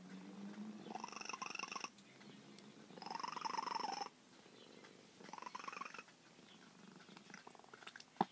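Old domestic cat purring close to the microphone, swelling in rhythmic surges about every two seconds, each with a raspy higher edge. A sharp click just before the end.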